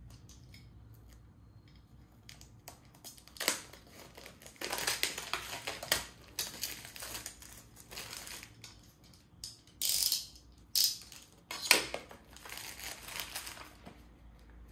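Tattoo machine box and its packaging being opened and handled by hand: irregular rustling and scraping noises with sharp clicks, the sharpest about twelve seconds in.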